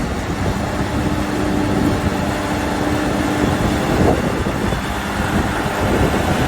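Caterpillar D5G XL crawler dozer's diesel engine running steadily, with a faint steady whine through the middle.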